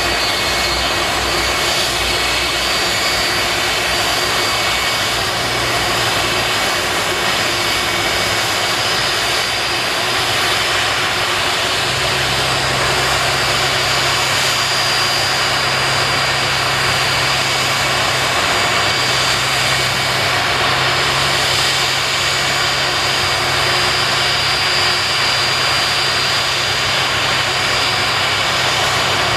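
Steady turbine whine and rumble from a Boeing 747-400 at close range during pushback and engine start, with a high whistle held throughout and a low hum that shifts up in pitch about twelve seconds in.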